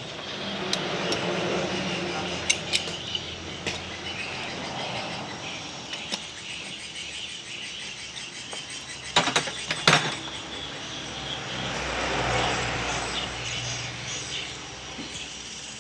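Scattered metallic clinks and knocks of tools and parts against metal, with a loud cluster of knocks about nine to ten seconds in, over steady workshop background noise.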